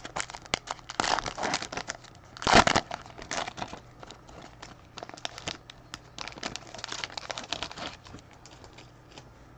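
Crinkling and rustling as trading cards and their packaging are handled, in irregular bursts with small clicks; the loudest burst comes about two and a half seconds in.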